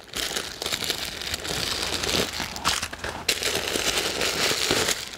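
White packing stuffing crinkling and rustling as it is pulled out from inside a new leather handbag, with a run of small crackles throughout.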